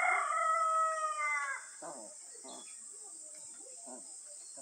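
A rooster crowing once: one long call, loud and held, that bends downward and ends about a second and a half in. Faint short chirps follow.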